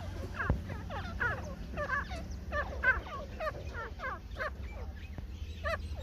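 Several caged grey francolins (teetar) calling, a quick run of short, falling chirps at about three a second, over a steady low hum.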